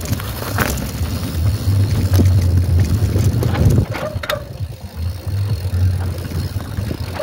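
Mountain bike rattling over a rough trail while being ridden, with many short knocks and clicks and a low rumble that eases off about four seconds in.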